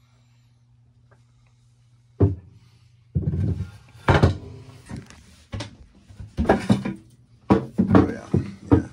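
Wooden cabin-sole floorboards and hatch covers being handled, lifted and set down: a sharp knock about two seconds in, then a run of irregular knocks and clatter.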